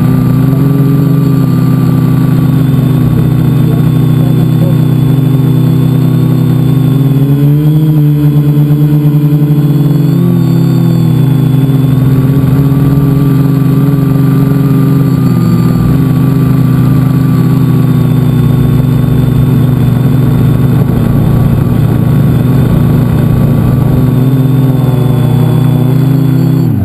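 Multicopter's electric motors and propellers running at close range, a loud, steady whine made of several tones. The pitch rises and dips briefly a couple of times as the throttle changes. At the very end it starts to slide down as the motors throttle back.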